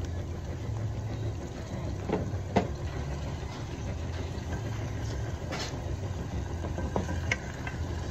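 Plastic spoon knocking and scraping against a metal pot as pork is stirred in soy sauce, a few short clicks spread through, over a steady low hum.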